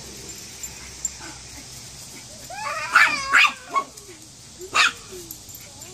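Small dog yipping and barking in a quick run of high calls about halfway through, then one more sharp yip, as it scuffles with a cat.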